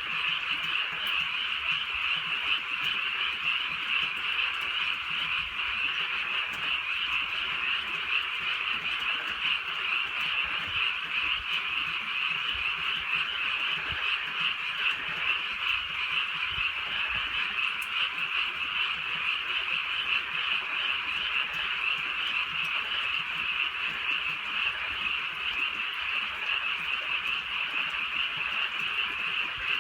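A dense chorus of many frogs calling together on a rural night, a continuous shrill, throbbing croaking that stays steady throughout.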